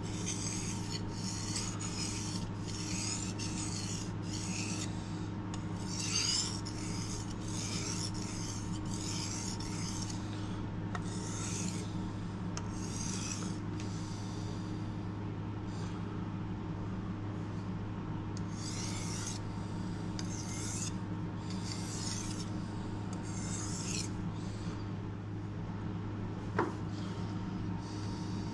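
Rasping back-and-forth strokes across a wet whetstone, about two a second, stopping about halfway through and starting again for several more seconds. A single sharp tap near the end.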